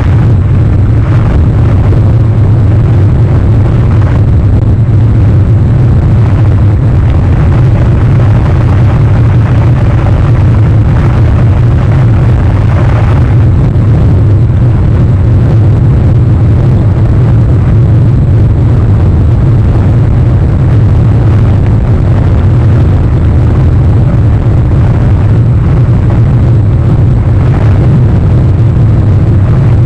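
Wind buffeting an outdoor microphone: a loud, steady low rumble with no distinct events.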